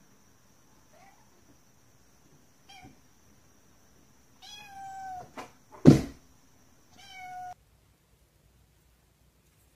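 Kitten meowing several times: a few short calls, then two longer ones. A sharp knock about six seconds in is the loudest sound, and the sound cuts off abruptly near the end.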